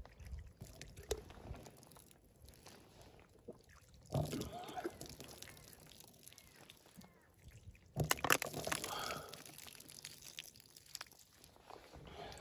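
Water poured from a plastic bottle over raw chicken wings in a foam tray, splashing and dripping, with small handling noises. Two louder bursts of noise come about four and eight seconds in.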